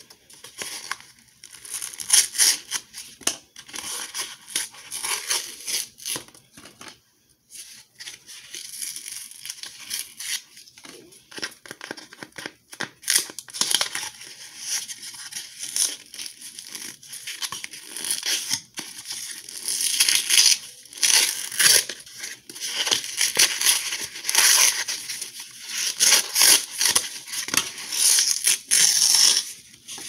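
A cardboard cornstarch box being torn open and the paper wrapping inside peeled back and crumpled: irregular ripping and crackling, louder and denser in the second half.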